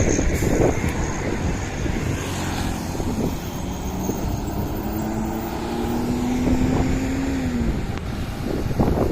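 Heavy traffic at a toll exit, steady engine rumble and road noise of passing buses. From about the middle, one engine's drone rises slowly in pitch for about four seconds, then drops away.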